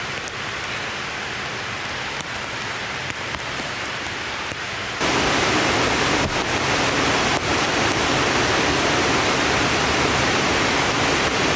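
Steady rushing of a rain-swollen creek and waterfall. About five seconds in it abruptly becomes louder and brighter, a steady roar of falling water.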